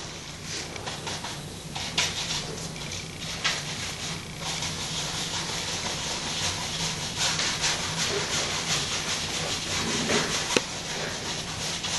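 Paintbrush scrubbing on a stretched canvas: a quick run of rough, scratchy strokes with short gaps between them.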